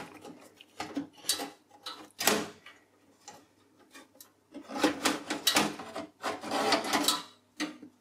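Motherboard being worked loose and lifted out of a small-form-factor desktop's sheet-steel case: irregular scrapes, clicks and knocks of the board against the case, in several short clusters.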